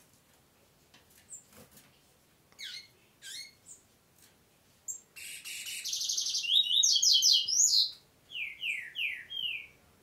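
Double-collared seedeater (coleiro) singing. A few short falling chirps come first. About five seconds in, the song starts with a fast buzzy trill and rapid repeated notes, the loudest part, and ends near the end with four falling slurred notes.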